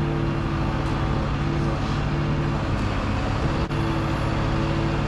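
Volvo FE 320 lorry's diesel engine running at a steady speed, its note holding even throughout.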